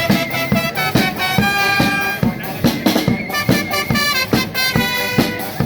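Charanga street band playing: brass and woodwind horns carrying a melody over a steady drum beat.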